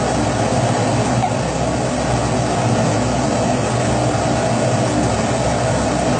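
Kerosene pressure stove (primus-type burner) burning with a steady, even rushing noise.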